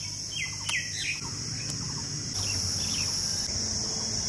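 Steady high-pitched drone of insects, with a few short bird chirps in the first two seconds.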